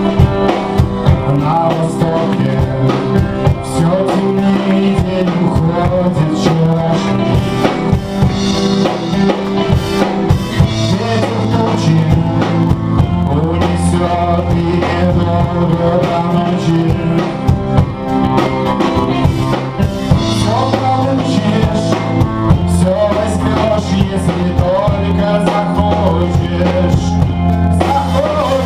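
Live rock band playing a song: drum kit and bass keep a steady beat under a wavering melodic lead line.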